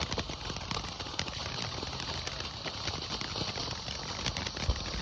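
Fireworks crackling: a dense run of small pops and snaps, with a single low thump near the end.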